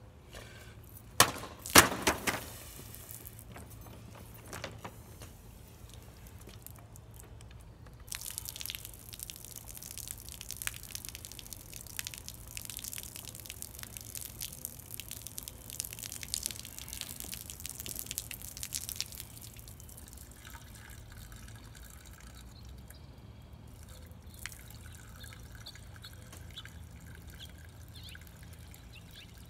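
Liquid pouring out of a plastic soda bottle and splashing onto the ground for about ten seconds, after two or three sharp knocks near the start.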